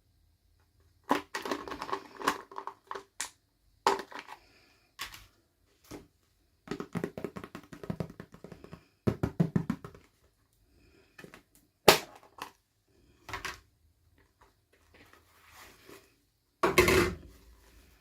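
Plastic toy packaging being handled and opened: irregular bursts of crinkling and sharp plastic clicks, with short pauses between them.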